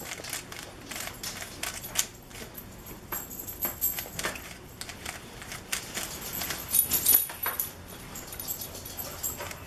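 3x3 speed cube being turned quickly during a solve: an irregular run of rapid plastic clicks and clacks from the turning layers, with the loudest clacks about seven seconds in.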